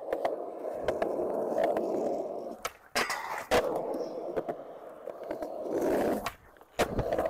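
Skateboard wheels rolling steadily, broken by sharp clacks of the board hitting the ground: a pair of hits about three seconds in and another near the end.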